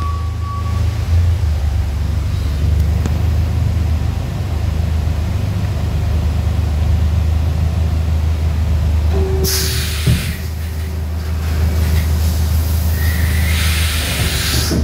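Enshu GE480H horizontal machining center cycling a pallet change: a steady low machine hum, with a loud hiss about ten seconds in and again near the end, and a single clunk between them.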